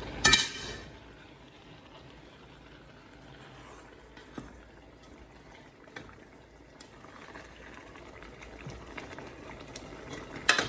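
A metal pot lid clanks once just after the start, then blended tomato stew bubbles softly in an aluminium pot with scattered faint pops. Another loud clank comes near the end.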